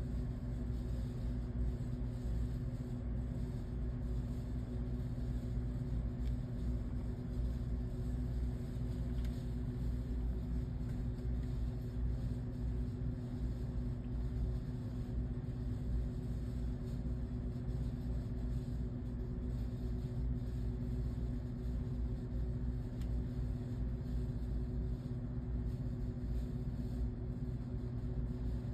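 A steady low engine or motor hum with an even rumble, unchanging throughout.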